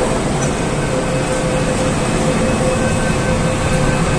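Door-closing warning tone of an MTR K-train sounding steadily at the doors, over the low rumble of the train standing at an underground platform.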